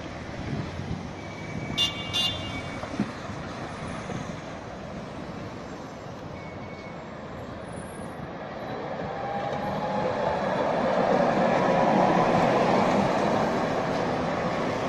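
Street traffic, then a tram passing on its rails, a rumble that builds to its loudest about twelve seconds in, with a faint rising whine, and then eases off. Two short high beeps sound about two seconds in.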